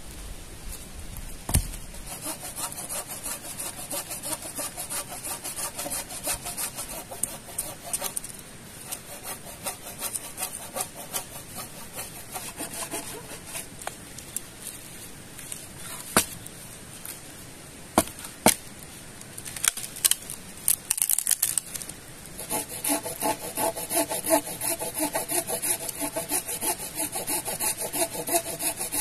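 Folding pruning saw cutting through a dead log in steady back-and-forth strokes. A few sharp knocks come in the middle of the cutting, and there is a brief pause about three quarters of the way through before the sawing resumes.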